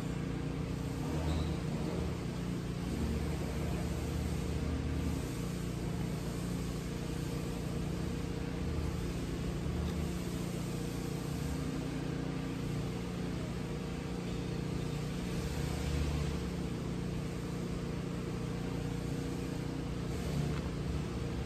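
A steady low mechanical hum with an even background hiss.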